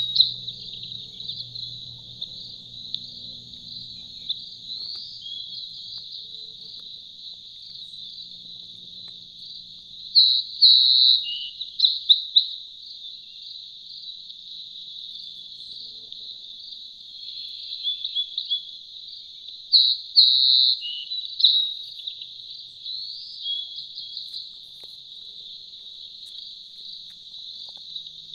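Insects shrilling steadily in woodland, with bursts of bird chirps and gliding calls about ten seconds in and again about twenty seconds in.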